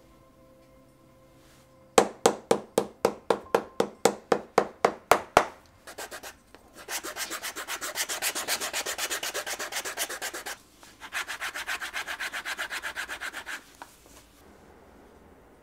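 Hand tools working a shoe: about a dozen sharp taps at roughly four a second. Then come two spells of fast, even back-and-forth rubbing, about ten strokes a second.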